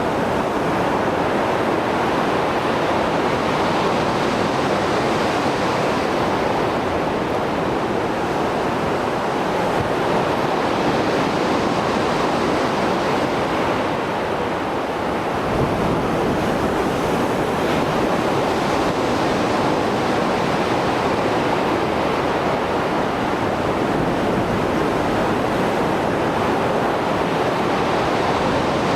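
Rough Mediterranean Sea surf after a storm: waves breaking and washing ashore in a continuous rushing wash that swells and eases slowly, with a short low thump about halfway through.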